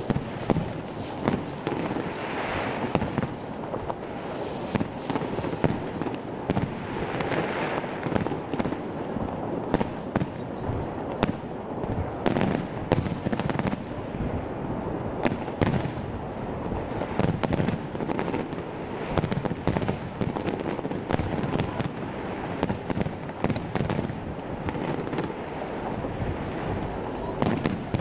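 Aerial fireworks display: a dense, unbroken barrage of bangs and crackles, many overlapping, over a steady rumbling haze of further explosions.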